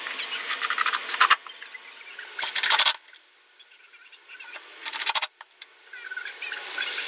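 Cordless drill-driver driving screws into wooden boards: the drill runs for about a second, gives two short bursts with pauses between, and starts again near the end.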